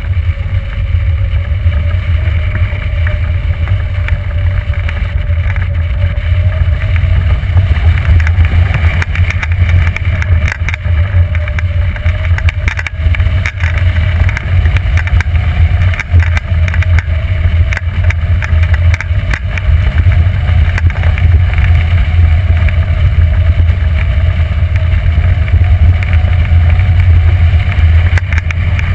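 Airflow over the microphone of a camera mounted on a hang glider in flight: a loud, steady low rumble with scattered crackles and a faint whistle that drifts slowly up in pitch.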